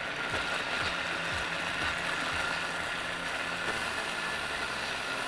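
Countertop blender motor running steadily, grinding ginger, onion and garlic into a paste.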